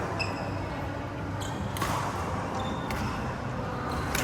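Badminton rally: several sharp smacks of rackets striking the shuttlecock at irregular intervals, with brief high squeaks of shoes on the court floor.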